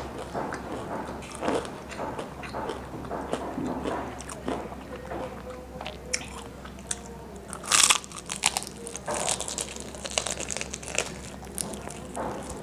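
Close-miked biting and chewing of crispy KFC fried chicken: irregular crunches and crackles of the fried coating, with one loud crunch about eight seconds in.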